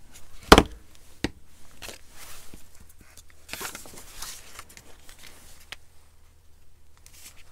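Paper rustling and sliding as glued book-page pieces are handled and pressed together on a cutting mat. A sharp click about half a second in and a lighter one a second in.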